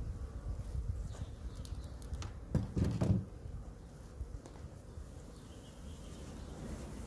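Honeybees buzzing around the hive, with a louder buzz for about half a second some two and a half seconds in, over a steady low rumble.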